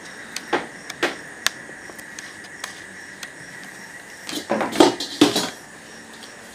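A few light clicks as a caught catfish is handled, then a short burst of knocking and scraping about four and a half to five and a half seconds in as the fish goes into a metal bowl.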